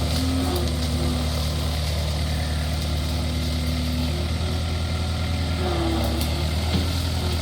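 Skid steer engine running steadily with a deep, even hum, and a higher whining tone above it that shifts in pitch a few times.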